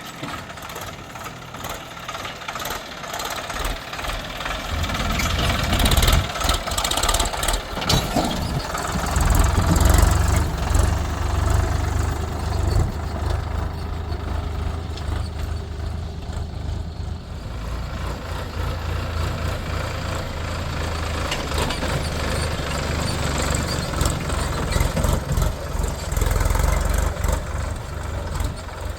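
Diesel engine of heavy earthmoving machinery running, growing louder about five seconds in and staying strong and steady, with a few sharp knocks around six to eight seconds in.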